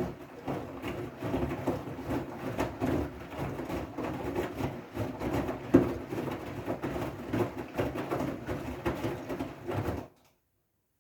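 Siemens washing machine on its wool/delicate programme, the drum turning with a low motor hum and small knocks and water swishing as the load tumbles. It stops suddenly about ten seconds in, as the drum pauses between turns.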